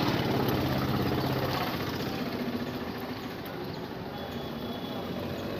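An engine running steadily with a fast, even throb. It is loudest for the first two seconds or so and then eases off a little.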